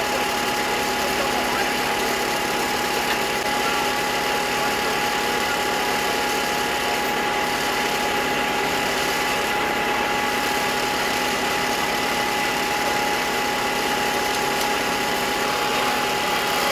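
An engine running steadily without change, with a constant high-pitched whine over its drone.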